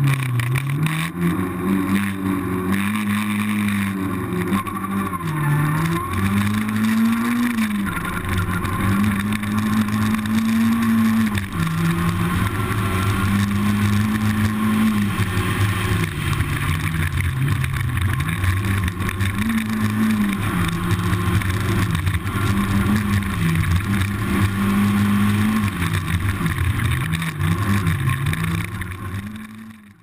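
A racing car's engine revving up and holding high, then dropping in pitch and climbing again several times, as through gear changes and lifts. It fades out at the very end.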